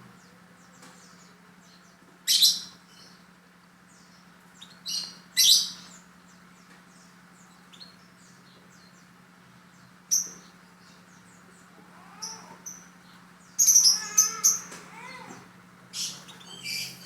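Lovebird giving short, shrill chirps in several separate bouts, the busiest and loudest run near the three-quarter mark, over a steady low hum.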